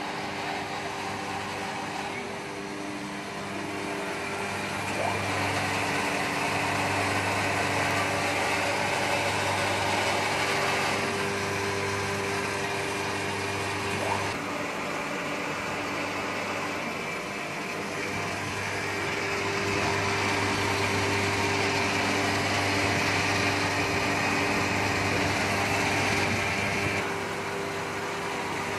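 Transformer oil filtration machine running: its electric motor-driven pumps give a steady hum with a higher whine and hiss, getting louder and quieter by turns.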